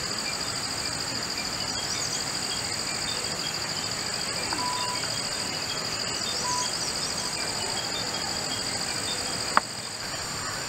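Steady high-pitched chorus of insects over a hiss of outdoor background noise, with a few short bird calls in the middle. A brief click about nine and a half seconds in, after which the background is a little quieter.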